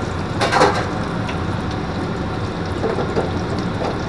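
Hot oil in a deep fryer bubbling and sizzling hard around frozen breaded green tomato slices just dropped in, the ice in them boiling off. There is a brief louder burst about half a second in.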